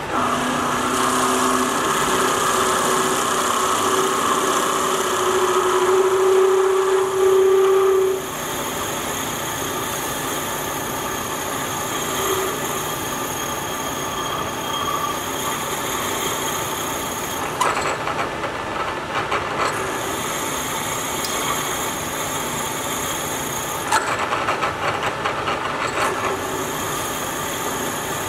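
Bridgeport mill with a 2J variable-speed head, running at 800 RPM as a half-inch drill bit cuts into a steel bar. A steady whine sounds over the machine for the first eight seconds or so, then drops away. Twice later a rapid rattling comes for about two seconds.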